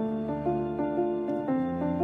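Instrumental background music, a keyboard or piano playing a steady run of notes.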